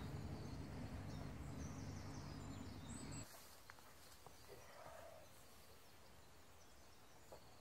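Quiet outdoor ambience. A low steady rumble stops abruptly about three seconds in, leaving near-quiet. Faint bird chirps run throughout.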